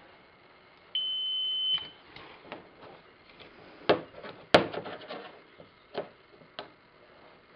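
AMY6 magnetic polarity tester giving one short, steady, high-pitched electronic beep about a second in. Later come a few sharp clicks as the stacked disc magnets are handled, the loudest about four and a half seconds in.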